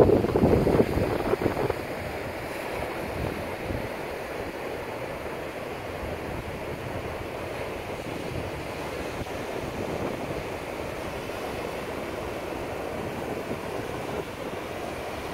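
Ocean surf breaking and washing onto a sandy beach and rock jetty, a steady rush of waves. Wind buffets the microphone more loudly for the first couple of seconds.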